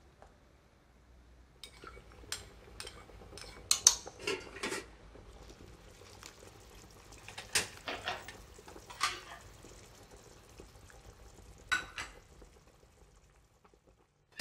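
Cutlery and plates clinking at a dinner table: a scatter of short, sharp clinks and knocks, the loudest about four seconds in, dying away near the end.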